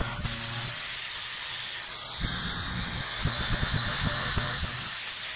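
Electric angle grinder running and grinding down welds on a bent steel square tube, a steady hiss with a gritty crackle. The grit is lighter for the first two seconds and comes back harder as the disc bites in again.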